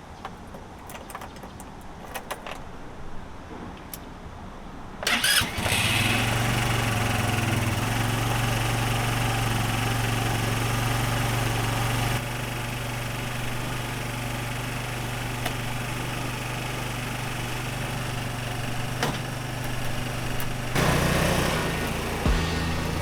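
GY6 150cc scooter's single-cylinder four-stroke engine starting about five seconds in and then idling steadily, after light clicks and handling noises. It settles a little lower around halfway, with the idle freshly adjusted after a carburetor repair.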